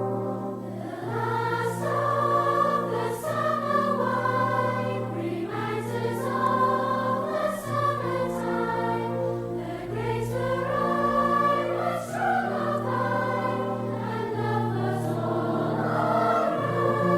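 Music with a choir singing sustained, swelling chords over a held low note.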